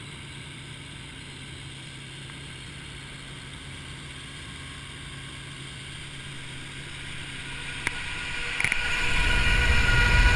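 Helicopter in flight: a steady mechanical hum of engine and rotor heard from on board, growing louder with a high whine near the end. Two brief clicks come just before it swells.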